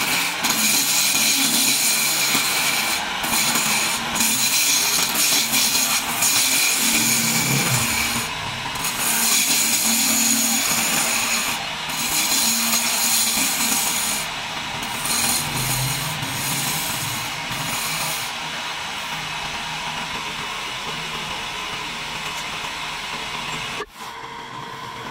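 Wood lathe spinning a chair-leg blank while a hand-held chisel cuts it: a loud, continuous rasping scrape of the steel edge on the turning wood, broken by a few brief pauses as the tool lifts off. After about 18 seconds the cutting stops and only a quieter, steady running sound is left.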